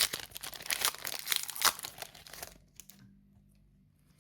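Foil wrapper of a Yu-Gi-Oh Duelist Nexus booster pack crinkling and tearing as the pack is opened by hand, stopping about two and a half seconds in, followed by a few faint clicks.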